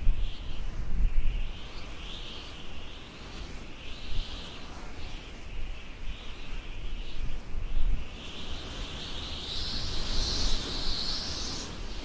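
Outdoor ambience: wind gusting on the microphone with uneven low rumbles, and high chirping throughout that grows stronger near the end.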